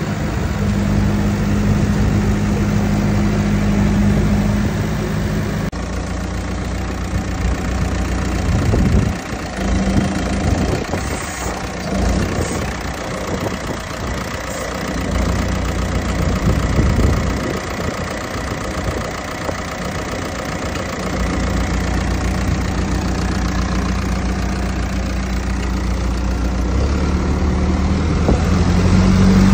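Diesel engine of a 2015 Case 650L crawler dozer running at idle, a steady low engine note whose pitch steps a couple of times.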